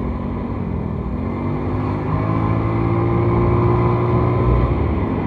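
Small motorcycle's engine running under way, rising in pitch as it accelerates from about a second in, over a steady low rush of riding wind.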